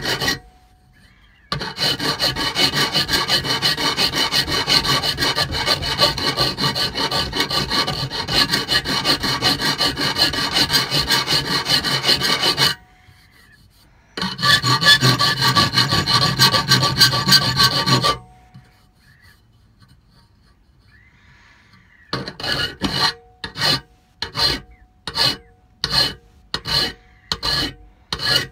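Hand file rasping on a workpiece in two long continuous bouts with short pauses between, then in short separate strokes about one and a half a second near the end. Steady ringing tones run through the rasp.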